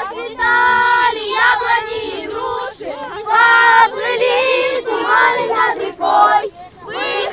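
A group of children singing together in chorus, phrase after phrase of a song.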